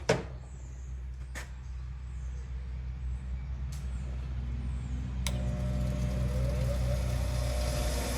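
A motor running steadily, with a few sharp knocks; about five seconds in a knock is followed by a louder, harsher running noise.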